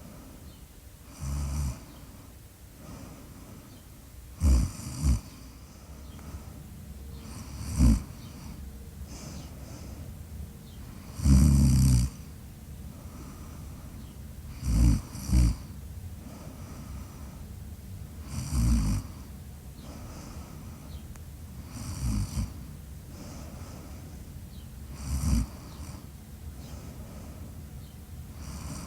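A sleeper snoring in a slow rhythm: short, loud snores come about every three to four seconds, some in quick double snorts, with the longest and loudest snore about halfway through.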